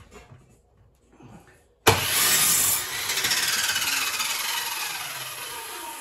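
Handheld electric sander switched on with a sudden start almost two seconds in, run for about a second, then its motor winding down with a falling whine that fades over several seconds.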